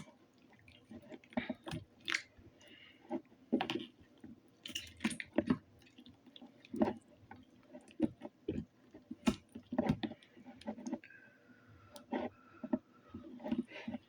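Slime being squeezed and pressed by hand into a plastic container: irregular wet squelches and sharp sticky clicks.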